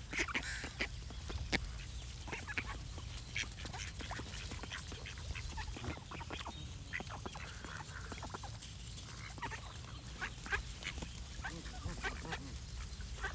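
Ducks quacking, many short calls coming irregularly, over a steady low rumble.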